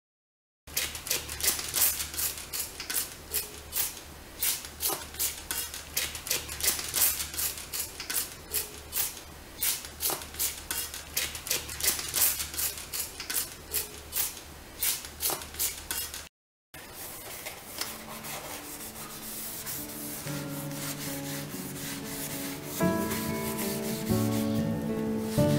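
Plastic trigger spray bottle squirted over and over, a short hissing spray about three times a second. After a brief cut, a cloth rubs over a stainless steel faucet while background music comes in.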